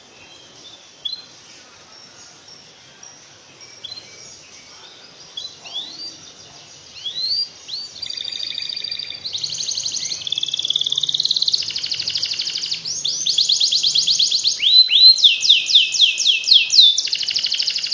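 Domestic canary singing: scattered short chirps and upward-sweeping notes at first, building about halfway into loud, fast, unbroken trills and rolls, the long continuous song used as a training song for canaries.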